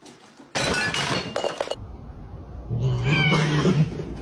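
A brief loud clattering crash about half a second in, then a domestic cat's low, drawn-out yowl that steps up in pitch near the end.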